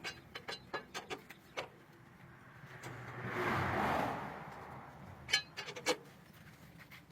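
Several short sharp knocks and clicks from work in the shop. A swell of noise rises and fades in the middle, then two louder knocks come close together near the end.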